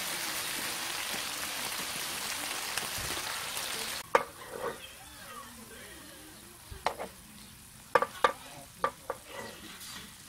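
Shrimp and rice cakes in red sauce sizzling in a frying pan with a steady hiss that cuts off about four seconds in. After that, metal tongs click and scrape against the pan a dozen or so times as the food is stirred.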